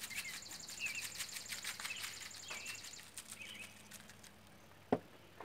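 A bird chirping, five short calls about a second apart, over faint rapid ticking and a faint high steady whine. A single sharp knock near the end.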